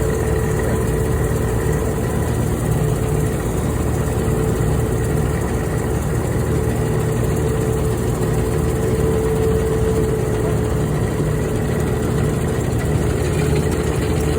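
Old New Holland Clayson M122 combine harvester's engine running steadily, a constant low rumble with a steady whine over it.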